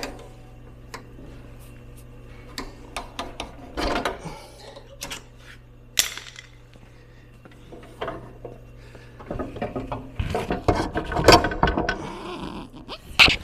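Metal tools clicking and knocking against the front axle and wheel hardware of a Ural sidecar motorcycle as the axle is worked loose and drawn out, with scattered clicks at first and a busier run of clanking near the end.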